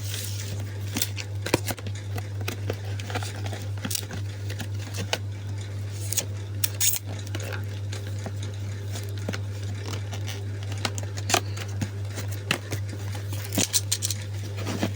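A nebulizer's cardboard box and packaging being handled and opened by hand: scattered clicks, taps and light rustles, over a steady low hum.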